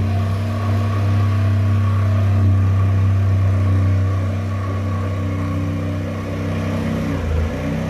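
Power saw running steadily under the floor beneath a bathtub, heard through the floorboards as a loud, steady hum that sets the whole floor vibrating; its pitch dips briefly near the end.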